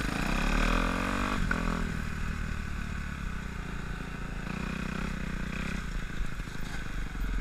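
Dirt bike engine running as the bike is ridden. It revs up over the first second and a half, then runs lower, and picks up again about halfway through.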